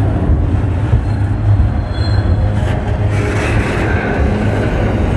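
Double-stack intermodal freight train rolling past close by: a steady low rumble of steel wheels on rail, with a faint high wheel squeal briefly around the middle.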